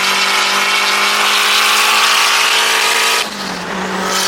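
Turbocharged K24-swapped Honda S2000 engine running hard at a steady pitch under a loud rushing hiss. About three seconds in the hiss and overall level drop off sharply while the engine note carries on, as when the throttle is lifted.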